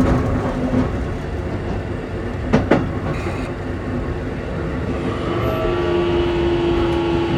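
Keikyu N1000 electric train car running, heard from inside: steady rumble with two quick wheel clacks over a rail joint about two and a half seconds in. A steady whine at constant pitch sets in from about the middle, from the Toshiba IGBT-VVVF traction drive.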